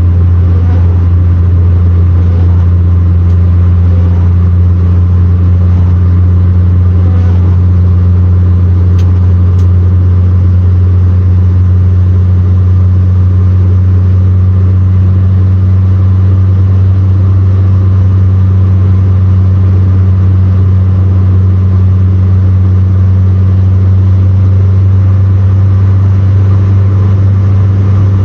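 Interior sound of a 1970 Renault 16 TS cruising at a steady speed: the four-cylinder engine and drivetrain give an unchanging low drone, with tyre noise from the wet road over it.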